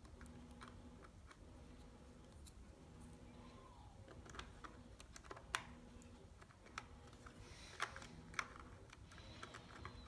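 Faint scattered clicks and taps of a laptop memory module being pushed and seated into the RAM slot of a Lenovo Z570, with a few sharper clicks in the second half.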